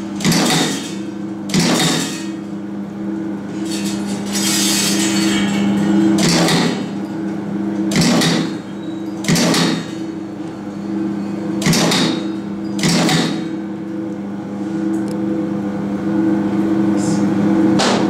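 2-ton roller clutch terminal crimping press (RC-2000) with side-feed applicator crimping chain terminals onto wires. A short sharp clack for each stroke of the ram, about nine strokes every one to two seconds with a longer pause near the end, over a steady motor hum.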